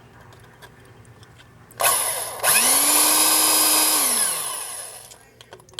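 Small electric drill with a wax-coated bit spinning up about two seconds in, running steadily for about a second and a half, then winding down. The wax is there to clear chips from the bit.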